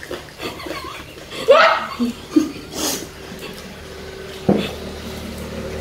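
Women laughing and giggling while eating pani puri, with a short noisy sound about halfway and a sharp knock a little later.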